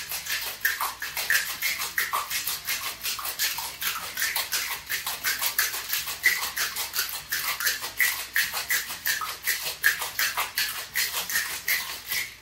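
Ice rattling and clattering inside a closed stainless steel Boston shaker, shaken vigorously in a fast, steady rhythm to chill and mix a rum cocktail; the rattling stops at the very end.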